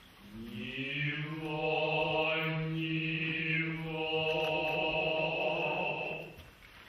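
Male voices chanting Kita-school Noh utai, the jiutai chant that accompanies a shimai dance. A single long, drawn-out syllable slides up in pitch as it begins about half a second in, is held nearly level for close to six seconds, and breaks off near the end.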